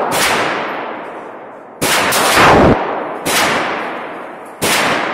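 .357 Magnum handgun fired four times, about a second and a half apart, each loud shot echoing and dying away slowly in an indoor shooting range.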